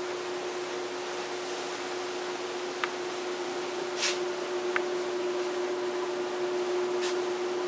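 Steady room hum with one held tone over an even hiss, broken by four light clicks or taps, the loudest about four seconds in.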